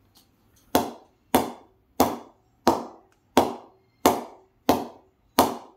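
A used Gortonshire leather cricket ball bounced repeatedly on the face of an SS English willow cricket bat: eight sharp knocks, evenly spaced about two-thirds of a second apart.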